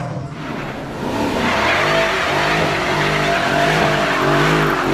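Mercedes-AMG SL roadster driven hard on a track, its engine revving up and down while the tyres squeal and skid, building about a second in.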